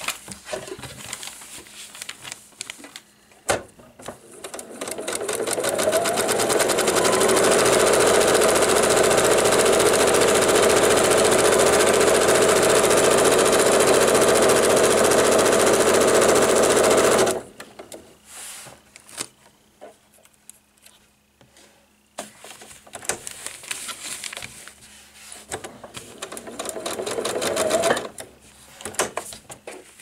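Electric sewing machine stitching through half-square-triangle foundation paper and fabric with a short stitch length. It speeds up over a couple of seconds, runs steadily for about twelve seconds and stops suddenly. After a pause with a few small clicks, it runs again, speeding up, for a couple of seconds near the end.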